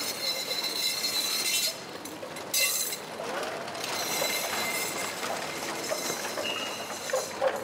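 High metallic ringing and jingling in stretches of a few seconds, with a short break about two seconds in and a stop near the end.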